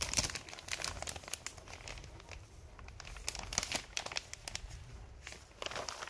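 Clear plastic sheeting crinkling and crackling in irregular bursts, loudest just after the start, again a little past three seconds and near the end.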